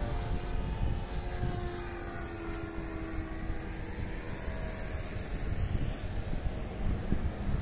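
Freshly overhauled O.S. Alpha 81 model engine of a Hangar 9 Showtime 50 RC airplane running in flight. Its pitch falls slightly over the first few seconds as it passes, then it fades into a steady low rumble.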